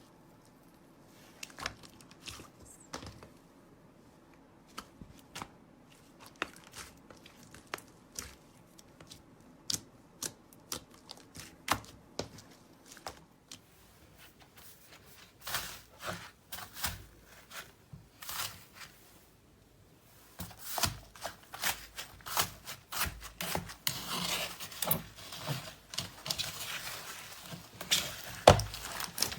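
Slime being handled by hand, giving sharp clicks and pops. They come one at a time at first, then turn into a dense crackling run about two-thirds of the way through.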